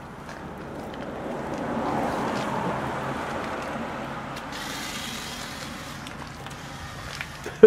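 A passing vehicle: a broad rumble swelling to a peak about two seconds in and then slowly fading, with a hiss coming in about halfway. A sharp knock right at the end.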